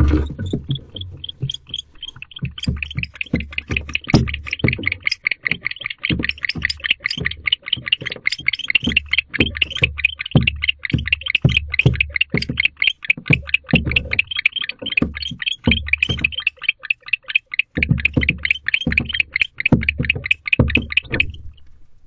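Male barn owl giving a long, fast run of short chittering call notes, many a second, a sign of distress at a predator near the nest box. Dull thumps from the box sound under it, and the calling stops about a second before the end.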